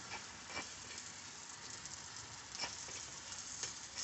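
Powdered alum sizzling faintly in a hot iron pan as it melts into liquid, the first stage of burning it to alum ash (sphatik bhasma), with a few faint clicks as it is stirred.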